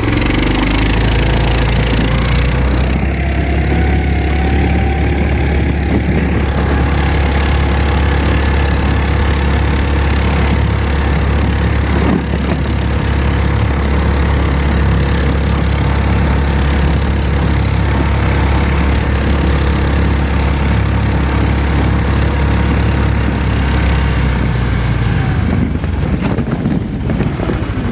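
Motor vehicle engine running steadily under way with a deep hum, rising in pitch over the first few seconds as it picks up speed, and dropping away near the end.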